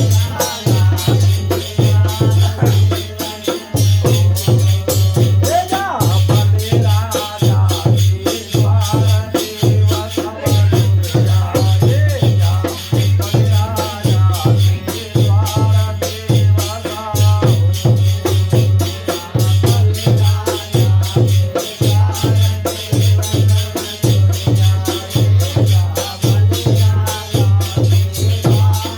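Holi folk music: a steady deep drum beat about twice a second, with a dense jingling rattle rhythm over it and a wavering melody line.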